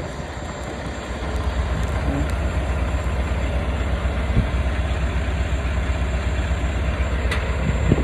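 Semi-truck's diesel engine idling with a steady low rumble.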